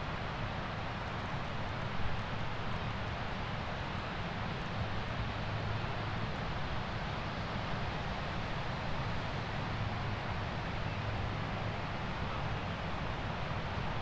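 Surf on a sandy beach: sea waves breaking and washing in, heard as a steady, even rush with a low rumble underneath.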